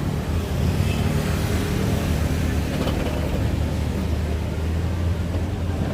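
Steady low rumble of road traffic, with engines running close by.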